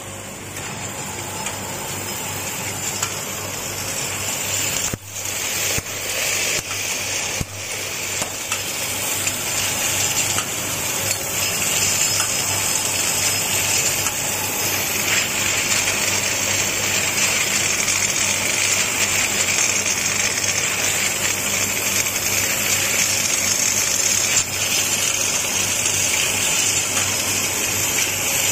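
Automatic vial oral liquid filling and capping machine running: a steady motor hum under a continuous even hiss, with a few short breaks near the start.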